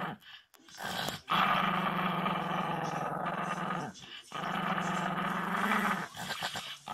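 Yorkshire terrier growling and grumbling in long drawn-out vocalizations, complaining: two long grumbles of about two and a half and two seconds, then a few short ones near the end.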